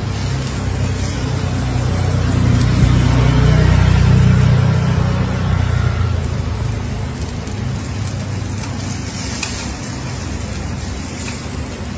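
Low, steady motor rumble with a faint hum in it, swelling over the first few seconds and then easing off.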